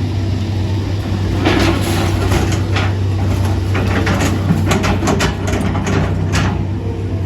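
A heavy engine runs steadily with a low hum, and scattered knocks and clatter sound over it through the middle of the stretch.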